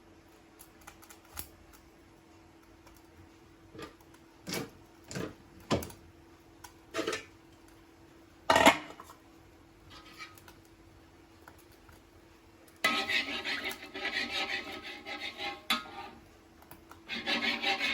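Kitchen utensils and dishes knocking and clinking in separate strikes, the loudest about halfway through, then a spell of rapid scraping and rubbing from about two thirds in, with a faint steady hum underneath.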